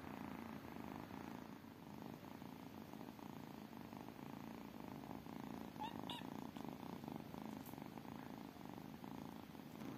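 Kitten purring steadily in a fast, even rumble, with a brief high chirp about six seconds in.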